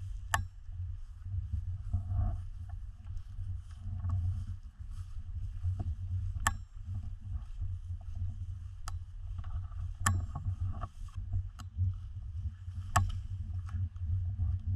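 Steady low rumble of wind and handling noise on a speargun-mounted camera, with footsteps brushing through tall grass and several sharp clicks.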